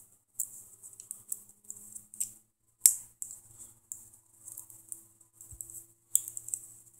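Small scratchy clicks and scrapes of a padlock being worked by hand, an aluminium beer-can shim and tension wrench pinched and twisted in it. One sharp click about three seconds in and another near the end.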